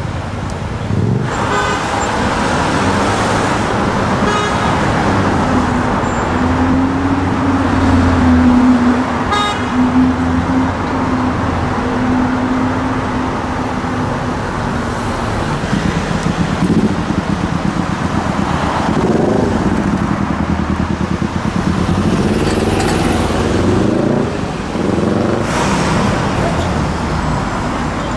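Busy city traffic with sports car engines running in slow traffic, a steady drone in the first half, then engines revving up and pulling away several times in the second half.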